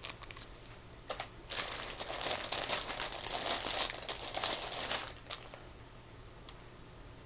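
Clear plastic bags crinkling and rustling as hands rummage through them, a dense crackling for about three and a half seconds in the middle.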